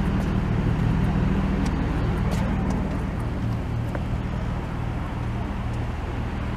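A vehicle or machine engine running steadily with a low drone, over a wash of road traffic noise.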